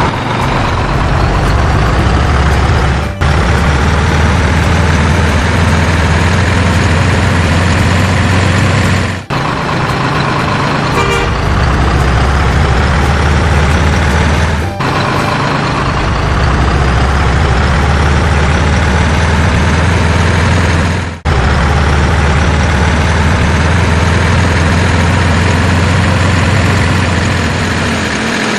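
Truck engine running, its pitch rising slowly through each stretch, with short breaks about every six seconds.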